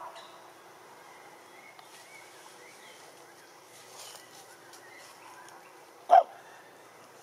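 A single short, loud animal bark about six seconds in, over faint high chirps.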